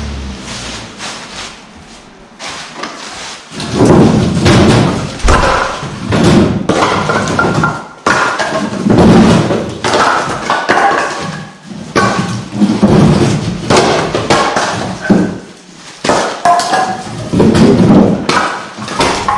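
Split cherry firewood being unloaded from a pickup bed, the pieces landing on one another with irregular clunks and thuds that come thick and fast from a few seconds in.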